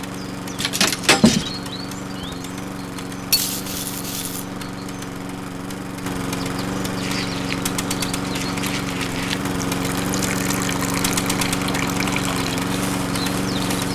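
Small motor of a DIY mini tractor or mini wheat thresher running steadily with a constant hum, with a few sharp clicks and a short hiss in the first few seconds. It gets louder about six seconds in.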